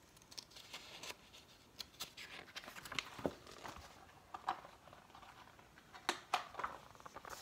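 Faint handling sounds of a paper picture book: scattered light clicks and brief paper rustles.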